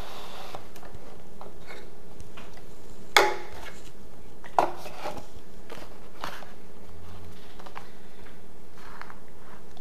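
Cardboard smartwatch packaging handled on a wooden tabletop: a sharp knock about three seconds in and another a second and a half later as boxes are set down, then lighter taps and rubbing as a box lid is lifted, over a steady background hiss.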